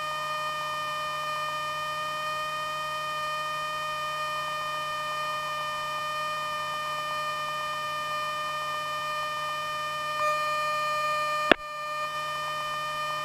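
A steady high-pitched whine with a stack of overtones on a Cessna Skyhawk's intercom audio feed. A single sharp click comes near the end, and the whine dips slightly in pitch after it.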